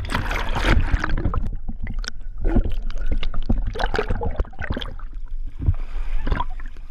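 Water splashing and gurgling around a hooked striped bass being worked alongside the boat, partly heard from a camera dipped under the surface, over a steady low rumble. The splashing comes in irregular surges, heaviest in the first second or so.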